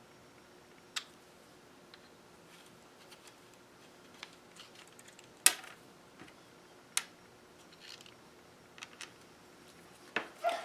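Scattered light clicks and taps from handling a Dremel rotary tool's small plastic parts and a screwdriver while taking it apart, with the sharpest click about halfway through.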